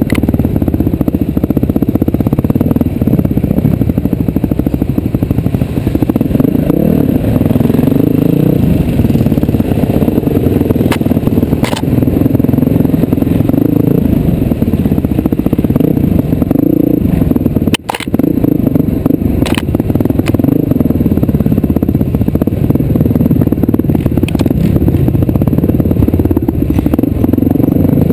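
Vehicle engine running loudly and continuously, its pitch rising and falling as it works, with occasional rattling knocks and a brief cut about 18 seconds in.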